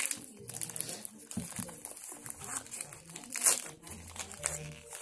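Crinkling plastic wrapper of a chocolate bar being handled and opened: a dense run of sharp crackles, loudest about three and a half seconds in.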